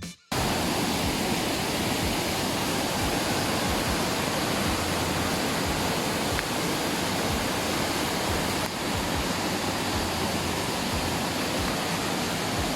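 Waterfall in full flow, swollen by heavy rain: a steady, even rush of falling water that starts abruptly just after the beginning and cuts off suddenly at the end.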